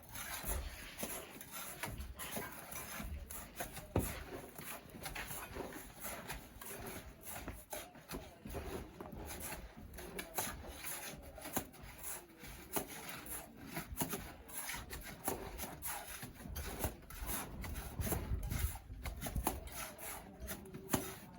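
Bricklaying work: a steel trowel scraping and spreading mortar, with irregular knocks and taps as bricks are set. The scrapes and clicks come unevenly, with a sharper knock about four seconds in.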